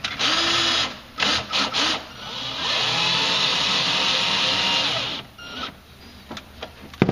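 Power drill driving a number 12 screw through a plastic floorboard: a short burst, two brief pulses, then a run of about three seconds that speeds up, holds and winds down as the screw is slowed to seat without stripping. A sharp knock near the end.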